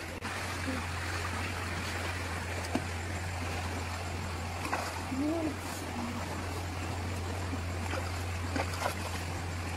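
Stream water running steadily, with a few small splashes as a fish is swished and rinsed in it. A low steady hum lies underneath.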